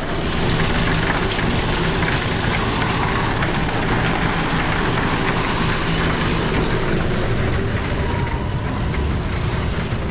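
Silo unloader running steadily after a repair, a continuous mechanical hum with steady low tones.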